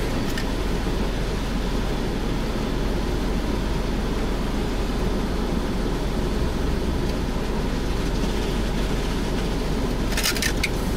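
Car engine idling, heard from inside the cabin as a steady low rumble, with a few sharp clicks about ten seconds in.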